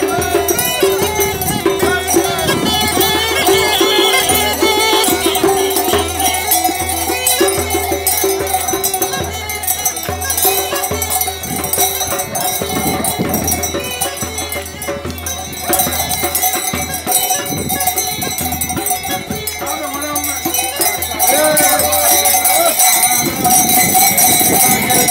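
Traditional Thracian folk music played live, a wavering melody over held tones and a steady beat of about two strokes a second.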